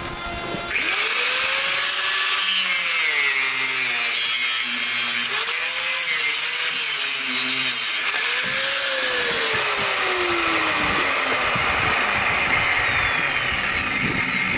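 Mains-powered angle grinder with a cutting disc spinning up about a second in and cutting through a 7mm steel chain, a loud steady grinding hiss. The motor's pitch wavers and sags as the disc bites into the links.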